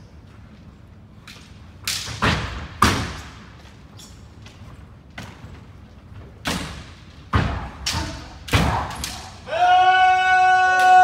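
Bamboo shinai strikes and stamping feet on a wooden floor during kendo sparring: sharp cracks in two clusters, three about two seconds in and six more from about six and a half seconds. Near the end comes one long held kiai shout at a steady pitch.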